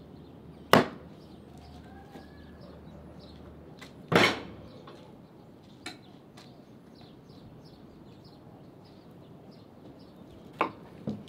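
Heavy chopping blows, spaced seconds apart: a loud strike just under a second in, another about four seconds in, and two quicker strikes near the end.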